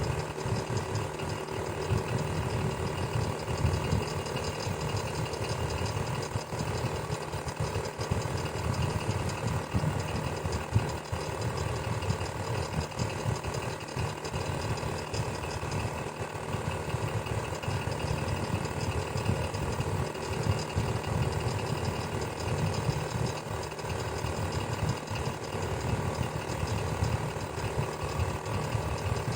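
Electric fan running steadily: a constant low hum that flutters rapidly, with faint steady tones above it.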